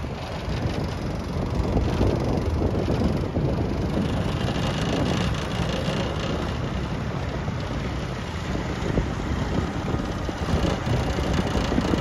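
Johnboat's outboard motor running under way against the current, growing a little louder about two seconds in, with wind buffeting the microphone.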